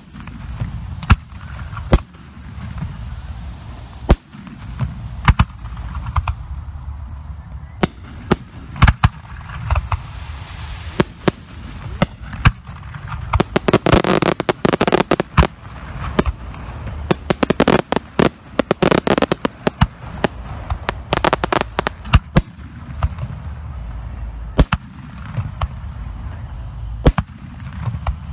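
Professional 3- and 4-inch aerial firework shells bursting overhead, with sharp bangs every second or two. About halfway through come two stretches of rapid crackling reports, several bangs a second.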